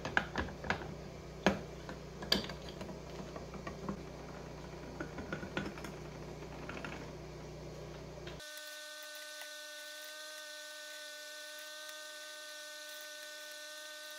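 Metal clutch parts of a Yamaha XT350 engine clinking and knocking as they are slid onto the shaft and handled. About eight seconds in, the sound changes abruptly to a faint, steady whine of several tones.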